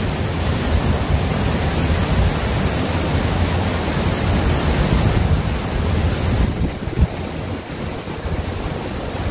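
Steady rush of a flowing river, with wind buffeting the microphone, and one brief thump near the end.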